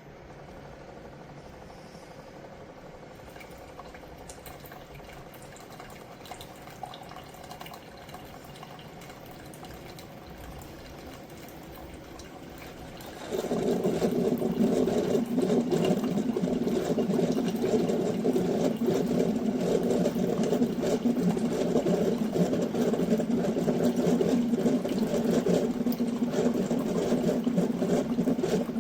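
Ninja PB051 single-serve coffee maker brewing: a faint steady hiss while it heats, then about halfway through its pump kicks in with a loud, steady buzzing hum as hot water flows through into the cup, cutting off near the end.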